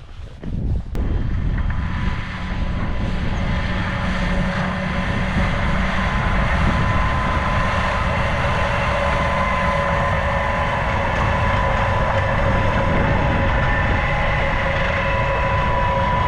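Snowdon Mountain Railway train engine running steadily, a loud drone with a constant hum.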